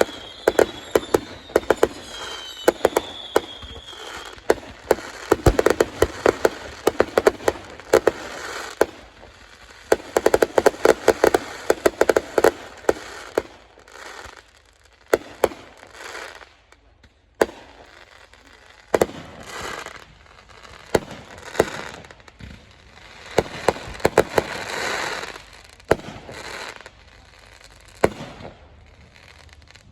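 Fireworks display finale: rapid volleys of bangs and crackling, with a few whistles falling in pitch in the first few seconds. The barrage thins out in the middle and swells again into a crackling burst near the end.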